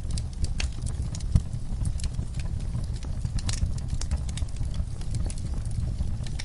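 Fire in a fireplace crackling: irregular sharp pops and snaps over a low steady rumble, with one louder pop about a second and a half in.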